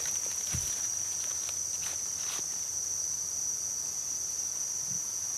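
A steady, high-pitched drone of forest insects, with a few faint crackles of footsteps in dry leaf litter.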